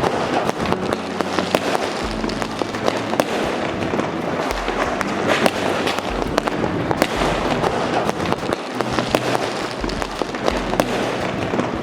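Firecrackers going off all around: many sharp, irregular cracks over a continuous crackle of distant bursts.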